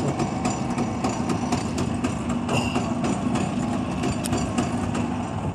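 Small single-cylinder engine of a cargo motor-scooter tricycle idling steadily, with a fast, even ticking.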